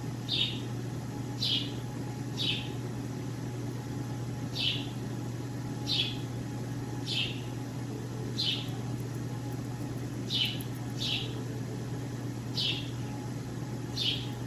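A bird chirping again and again, short sharp chirps that slide down in pitch, about one a second at uneven intervals, over a steady low hum.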